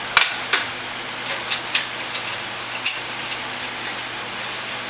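Small metal hand tools clicking and clinking against metal, about seven sharp ticks in the first three seconds, over a steady background hiss.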